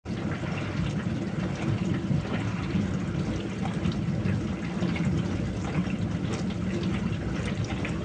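Dishwasher running its wash cycle: water spraying and sloshing inside the tub in a steady low churn, with a light irregular patter of droplets over it.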